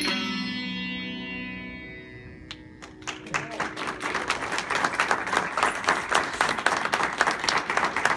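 Indian dance music ends on a held note that fades away over the first couple of seconds; about three seconds in, audience applause starts and grows louder.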